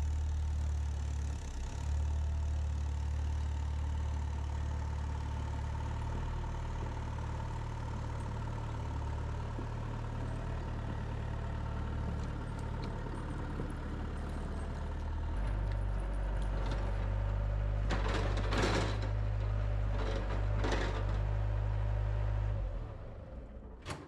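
Bobcat 853 skid steer's diesel engine running as the machine drives up to the shop. The engine note shifts about two thirds of the way through, and a few short bursts of noise come near the end.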